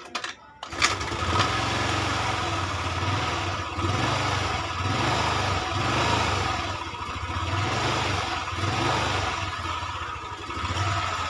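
Honda Vario 110 carburetted scooter's single-cylinder four-stroke engine catching on a kick start about a second in, then running with its revs rising and falling a little as the throttle is held open. The engine will not settle to idle on its own, the hanging-throttle fault being diagnosed.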